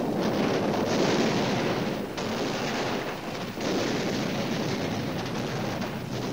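Battle soundtrack of continuous gunfire and artillery shell blasts, a dense crackle of many shots with brief lulls about two and three and a half seconds in.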